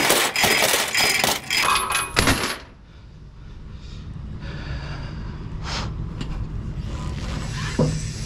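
Steel tie-down chains rattling and clinking against each other and the trailer deck, stopping abruptly after about two and a half seconds. A low steady hum follows, with two light knocks near the end.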